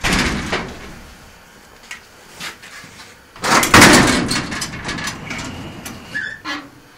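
A garage door being opened: a short rattling clatter at the start, then a longer, louder rattle and scrape about three and a half seconds in that dies away, with a few light knocks after.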